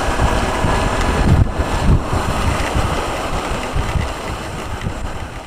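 Wind buffeting an action camera's microphone on a moving motorcycle, over the low running of the bike's engine and the hiss of a wet road. It grows quieter near the end as the bike slows.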